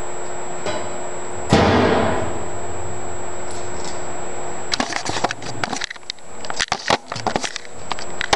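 A single loud bang about a second and a half in, fading quickly, then a run of irregular clicks and clatters over a steady hum.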